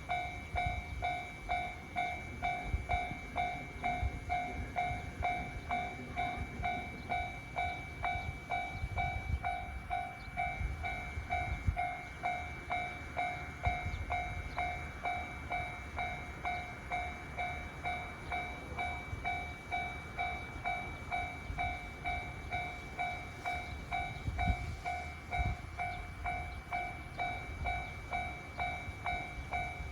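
Japanese railroad crossing warning bell ringing with a steady, evenly repeated ding, with low rumbling underneath.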